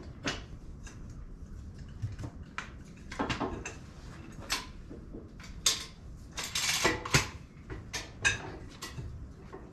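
Metal tools clinking and knocking as they are picked up and handled, a string of sharp clanks with a short rattle about seven seconds in.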